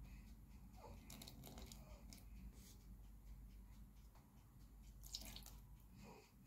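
Near silence: faint room tone with a few soft brief clicks and rustles.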